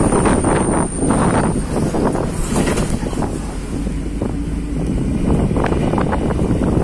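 Wind rushing past the open window of a moving bus, buffeting the microphone in uneven gusts, over the steady rumble of the bus running along the road.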